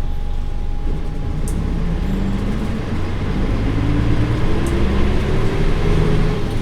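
Nissan Diesel Space Runner bus's PF6HT six-cylinder diesel engine pulling under load. About a second in, its revs start to climb steadily as the bus accelerates.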